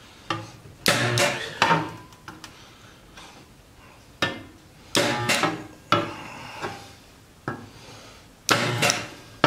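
Lenco resistance spot welder firing a series of short welds through two overlapping steel sheets clamped between its copper electrode tongs: about six separate buzzing bursts, each lasting up to about a second.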